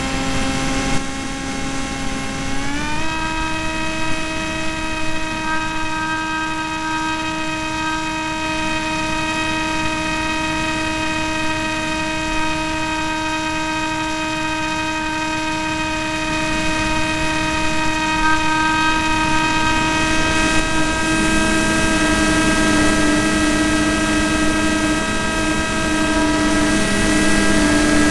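Electric motor and propeller of an AXN Floater RC foam plane whining steadily in flight, with a rushing noise underneath. The pitch steps up about three seconds in as the throttle opens, and a second, lower warbling tone joins about twenty seconds in.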